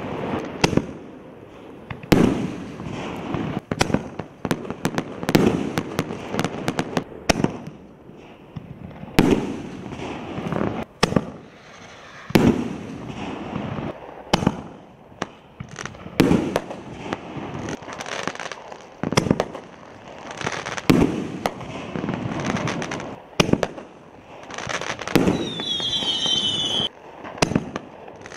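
60-gram canister fireworks shells fired one after another from a mortar tube: launch thumps and loud bursts about every one to two seconds, each burst trailing off in echo.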